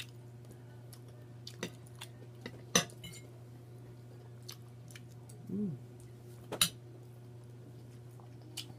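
Scattered clinks and taps of cutlery against dishes during a meal, the two loudest sharp clinks about three seconds in and a little past six and a half seconds. A short hummed "mm" comes about halfway.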